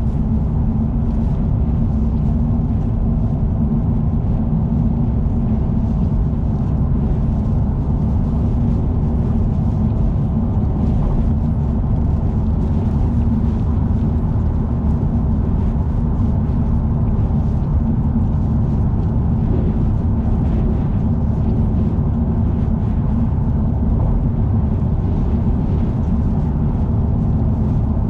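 Steady low rumble of a car travelling at expressway speed: road, tyre and wind noise that holds level throughout.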